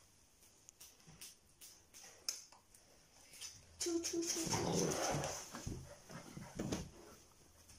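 Golden retriever puppy vocalising: a few short whimpers about four seconds in, then a louder rough, noisy stretch of a couple of seconds, with faint clicks before it.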